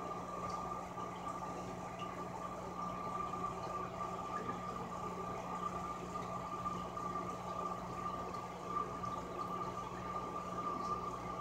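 Aquarium equipment running: a steady watery bubbling with a constant low hum, like an air-driven or motor filter.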